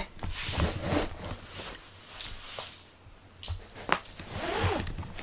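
Short bursts of scratchy rustling and scraping as a cat moves about right next to the microphone, loudest in the first second and again near the end.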